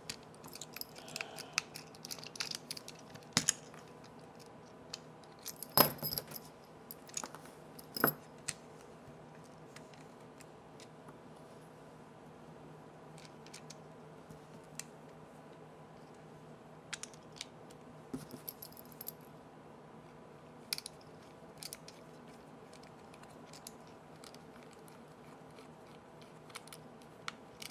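Scattered small clicks and taps of a LeapFrog Tag reader pen's plastic casing being handled and its small screws driven in with a precision screwdriver, with a couple of sharper knocks about six and eight seconds in.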